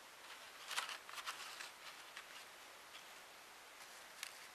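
Faint rustling and crinkling of die-cut paper shapes being handled and pulled apart, loudest about a second in, with a small click near the end.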